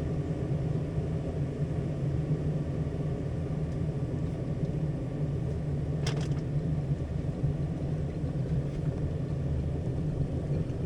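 Electric kettle heating water toward the boil, a steady low rumble. A single sharp click about six seconds in.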